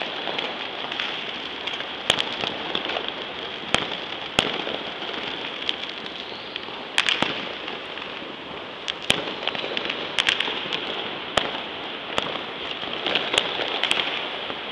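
Fireworks and firecrackers going off: a continuous dense crackle with sharp, louder bangs at irregular intervals, roughly one a second.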